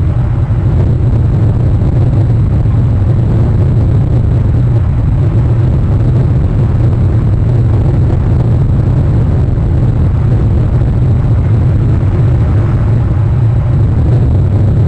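Steady low rumbling noise of wind and rain on an outdoor webcam's microphone, unchanging throughout.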